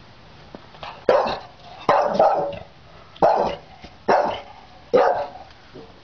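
Staffordshire Bull Terrier barking, about six barks roughly a second apart, two of them in quick succession.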